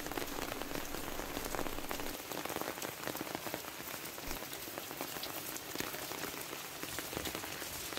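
Steady rain falling, heard as an even hiss made of many small drop impacts.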